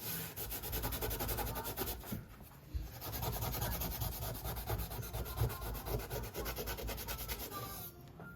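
Rapid, steady rubbing or scraping by hand, stopping shortly before the end.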